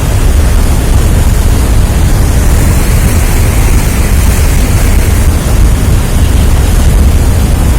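Wind buffeting the microphone aboard a moving ship: a loud, steady low rumble with hiss over it that buries any other sound.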